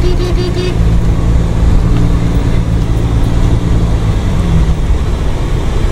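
Car engine running steadily, heard from inside the cabin while driving on a snowy road, over a constant rumble of tyre and road noise. The engine note shifts slightly about four seconds in.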